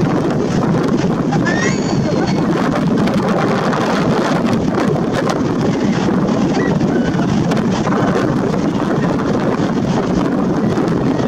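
Steady wash of surf breaking on the rocks, mixed with wind on the microphone and indistinct chatter from a crowd.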